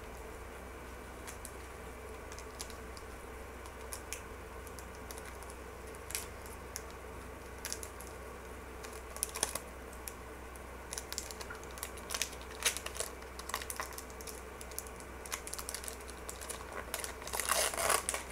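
Wrapper of a trading-card pack being torn open and crinkled: scattered short crackles that come thicker near the end, over a faint steady hum.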